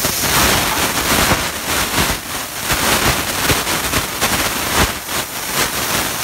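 CNC plasma cutting torch cutting metal: a loud hiss with crackling that starts abruptly.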